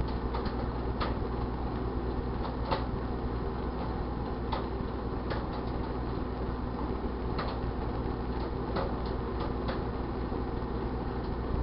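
1978 GE Dual Wave microwave oven running with a steady hum, while popcorn kernels pop now and then inside: about a dozen scattered, irregular pops, the first kernels going as the bag heats.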